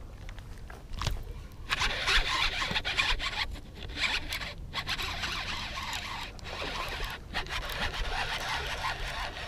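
Baitcasting fishing reel being cranked, its gears whirring as line is wound in. The winding starts about two seconds in and runs in stretches with a few short pauses.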